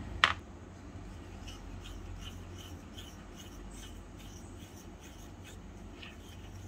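A single sharp knock, then a utensil scraping lightly and rhythmically against a small cooking vessel, about three strokes a second.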